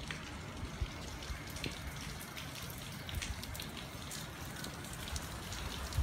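Steady hurricane rain falling, with scattered sharp ticks of drops and drips close by.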